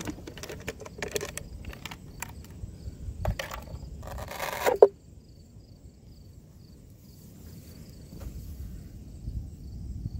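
Hand-handling noises on an RC boat's fibreglass hull: scattered clicks and taps, then about four seconds in a rustling scrape ending in a sharp snap as the hatch cover comes off. After that, quiet outdoor ambience with a faint, regular high ticking.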